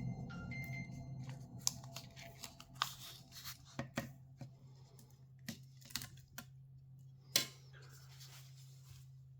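Tools prying and scraping at the glued back cover of a Xiaomi Mi 11 smartphone: irregular sharp clicks and scraping, the loudest click about seven seconds in, over a steady low hum.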